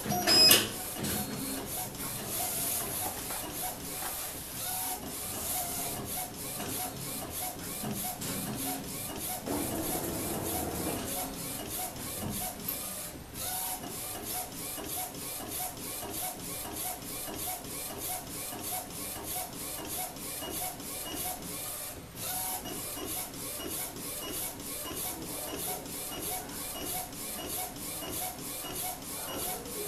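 Small A4 eco-solvent flatbed inkjet printer printing: the print-head carriage shuttles back and forth in a steady repeating rhythm of mechanical passes. A sharp knock sounds about half a second in.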